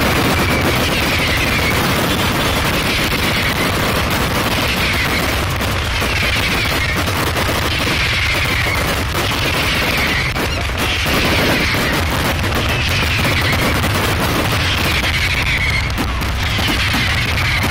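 Fireworks batteries firing a dense barrage: a continuous crackle of rapid small bangs mixed with deeper booms. A high tone falling in pitch repeats about every two seconds.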